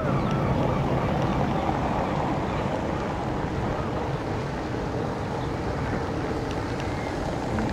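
Wind buffeting the microphone: a steady, rumbling hiss.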